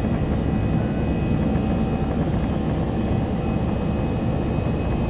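Steady cabin noise of an Airbus A320-200 in flight, heard from inside the cabin: an even, low rush of engine and airflow noise.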